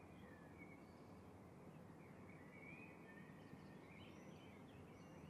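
Near silence: faint outdoor ambience with soft, scattered bird chirps, a small cluster of them about four seconds in.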